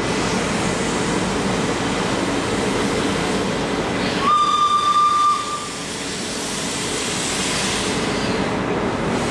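Steady running noise of a train hauled by a WP class 4-6-2 steam locomotive moving off slowly, with one steam whistle blast about a second long, starting about four seconds in.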